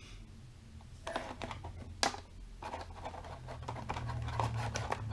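Light clicks and rustling from hands handling a lavalier microphone's thin cable and its small plug, with one sharper click about two seconds in and quicker ticking near the end.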